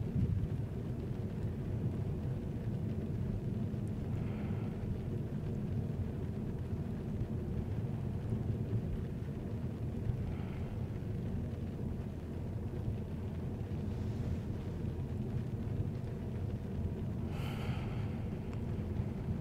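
Steady low rumble of a vehicle driving, engine and road noise heard from inside the cabin.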